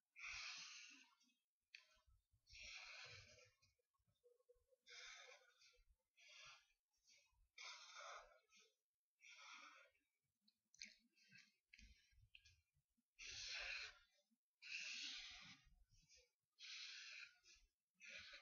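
Felt-tip marker drawing on paper: a run of short scratchy strokes, about one every second or two, as lines are drawn, with faint soft thuds from the paper and hand.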